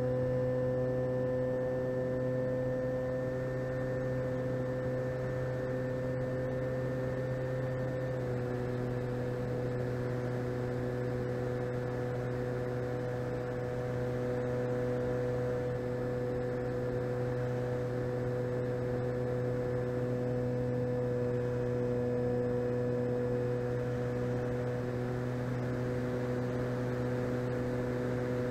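The electric motor and propeller of an E-flite Cessna 150 RC plane in flight, heard from on board: a steady hum at cruise throttle whose pitch drops slightly about eight seconds in.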